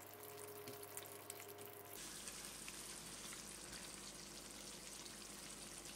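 Faint sizzling and simmering of a potato curry gravy in a kadai as it is stirred with a silicone spatula; the crackle gives way to a steadier hiss about two seconds in.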